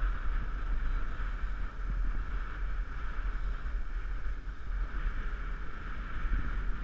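Wind buffeting the microphone with a steady low rumble, over choppy lake water washing against a small boat's hull.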